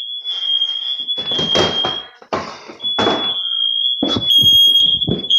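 Nest Protect smoke alarm sounding its shrill, high, steady alarm tone. The tone breaks off a little after two seconds in and comes back louder near the end, with short bursts of noise over it. It is a false alarm at emergency level that the unit refuses to hush.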